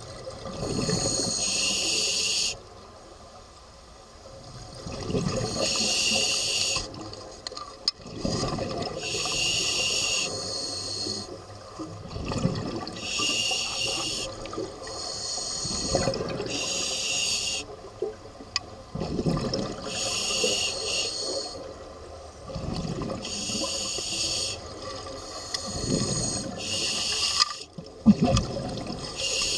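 Scuba diver breathing through a regulator underwater: a hissing inhale about every three to four seconds, each followed by the low gurgling rumble of exhaled bubbles. One sharp knock near the end.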